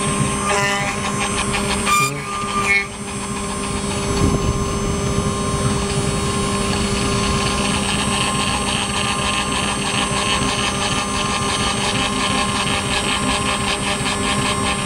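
Engraving machine's spindle motor running steadily while its fine bit cuts into a metal plate: a steady machine hum with a grainy, rapidly pulsing cutting rasp on top that grows stronger from about seven seconds in. A sharp click about two seconds in.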